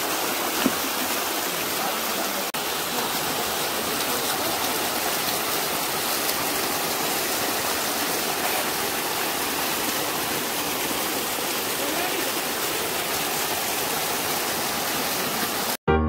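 Steady rush of flowing stream water, even and unbroken, cutting off abruptly near the end.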